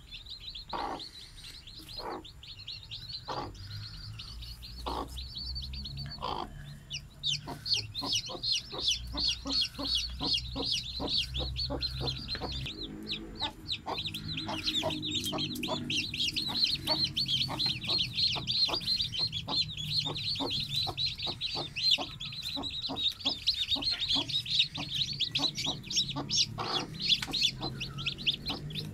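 Newly hatched chicks peeping nonstop in rapid, high cheeps, growing denser and louder about seven seconds in, with the broody hen's short low clucks among them.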